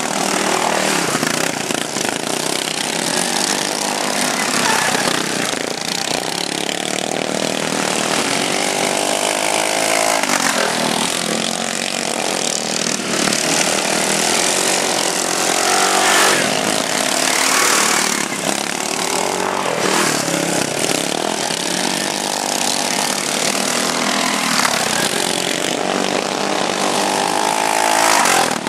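Racing lawnmower engines running hard, their pitch rising and falling again and again as the mowers accelerate and back off around the dirt track.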